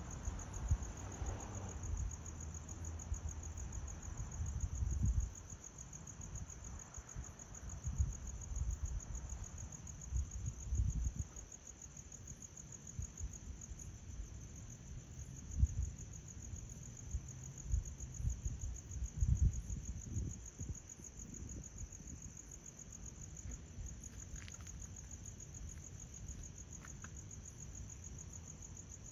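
Crickets trilling steadily at a high pitch, a fast even pulse that never stops, with gusts of wind buffeting the microphone every few seconds.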